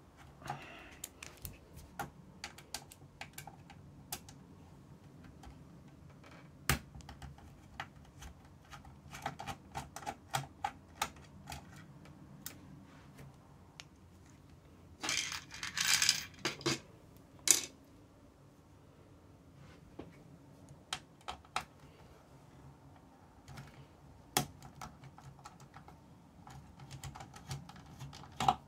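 Small screwdriver turning screws out of the cassette deck's metal and plastic chassis, giving scattered light clicks and ticks. A louder rustling burst comes about fifteen seconds in, followed by a sharp click.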